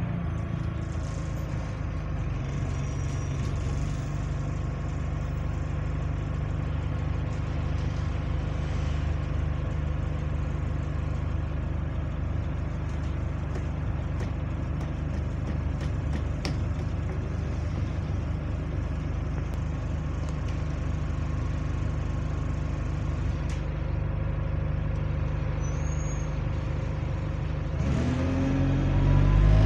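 Bus diesel engine idling with a steady low hum, heard from inside the passenger saloon. Near the end it revs up and rises in pitch as the bus pulls away.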